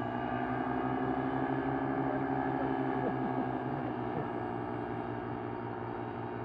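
Paramotor engine and propeller droning steadily, a pitched hum that swells slightly in the first half and then eases.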